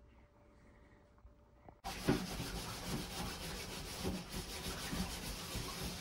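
A utensil stirring and scraping the bottom of a large metal pot of soy milk heating on the stove, a continuous rubbing, scratchy noise in irregular strokes that starts suddenly about two seconds in.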